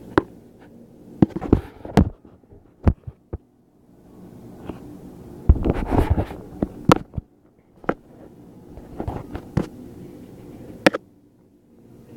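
Handling noise close to the microphone: irregular knocks and clicks, with a longer rubbing burst about halfway through, over a steady low hum.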